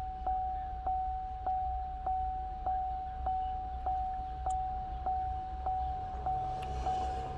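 Car's electronic warning chime dinging steadily about every 0.6 seconds, each ding a single mid-pitched tone that fades into the next, over a low background hum.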